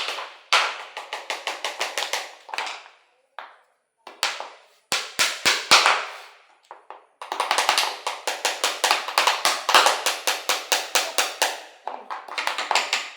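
Hammer blows on wood in quick, even runs of about five strikes a second, in several runs of one to five seconds with short pauses between.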